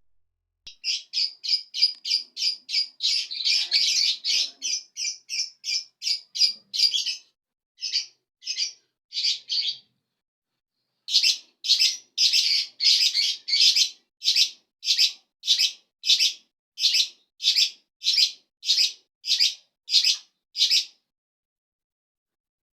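A small bird calling in a long, even series of short, high chirps, about two a second, with a brief pause about ten seconds in before the series resumes.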